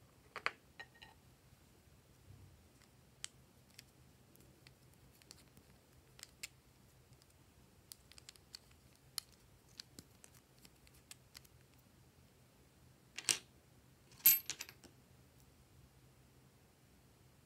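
Small plastic makeup tubes clicking and tapping against each other as they are handled, with a louder metallic clatter and a brief ringing clink of scissors near the end.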